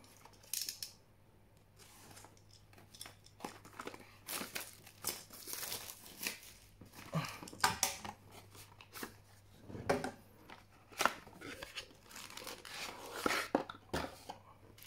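Plastic shrink-wrap crinkling and tearing as a cardboard trading-card box is unwrapped and opened, in irregular rustling bursts.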